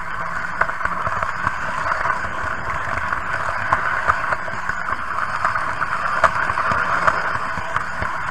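Märklin H0 model train running along metal track: a steady whirring motor with frequent small irregular clicks as the wheels pass over rail joints.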